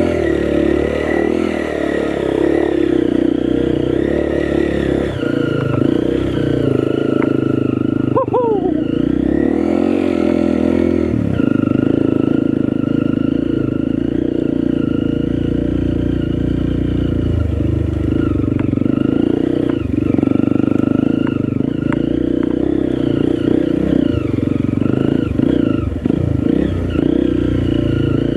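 Honda CRF single-cylinder four-stroke trail bike engine, a freshly built 301 being run in, pulling steadily up a rough, rutted trail, with the chassis clattering over the bumps. A short falling squeal sounds about eight seconds in.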